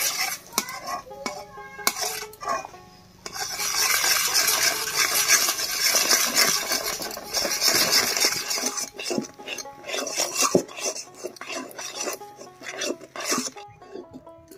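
A metal spatula stirs rice flour into boiling water in a metal wok, making a stiff rice dough. It scrapes the pan in a steady run from about three to nine seconds, then gives separate scrapes and clinks that stop near the end.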